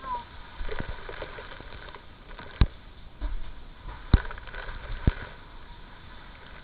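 Three sharp knocks, a second or so apart, over steady background noise.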